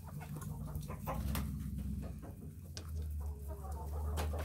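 Chickens clucking and calling in short, scattered notes, worked up while waiting to be fed, over a low steady hum.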